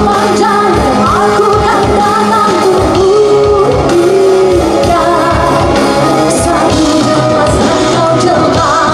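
Woman singing live with a rock band of electric guitars, keyboards and drums, amplified through a concert PA; a sung melody rides over a steady drum beat.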